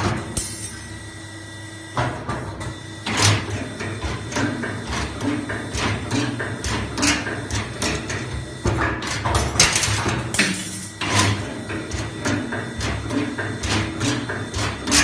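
A 2D CNC machine running automatically: a steady hum with many irregular mechanical clicks and clacks. The clatter drops to a lull just after the start and picks up again about two seconds in.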